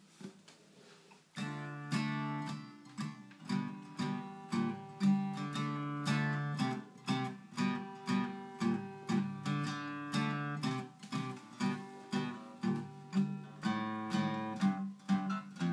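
Instrumental song intro on a strummed guitar, starting about a second and a half in: steady chords with an even strumming rhythm.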